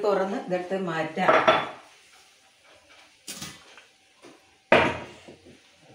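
Brief speech, then a stainless steel pot lid clanks twice against metal, a lighter knock about three seconds in and a louder clank near five seconds, as the lid comes off the dum biryani pot and is set down.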